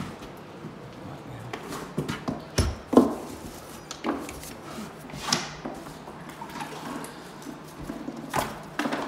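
Irregular knocks and thuds, about eight of them, the loudest about three seconds in, with a faint low hum in the second half.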